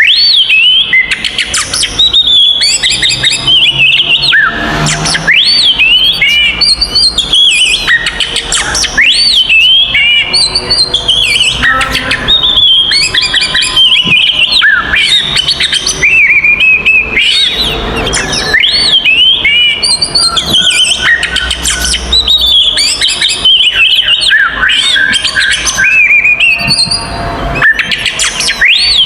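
Oriental magpie-robin (kacer) singing loudly and without pause in its aggressive 'fighting' song: a rapid, varied stream of sliding whistles and chirps.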